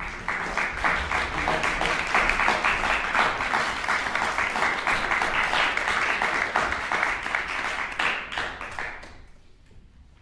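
Audience applauding, a dense patter of many hands clapping that dies away about nine seconds in.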